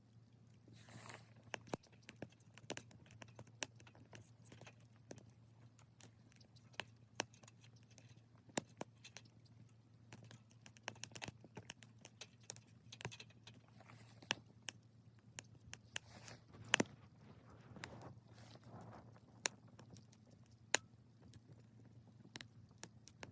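Small wood fire in a Sierra Stove crackling, with sharp, irregular pops and snaps from the burning wood over a low steady hum.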